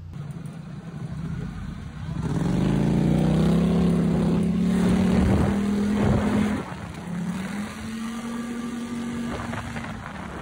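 Polaris 850 ATV engine revving up about two seconds in and holding a steady high pitch. It eases off after about six and a half seconds, then runs steadily again.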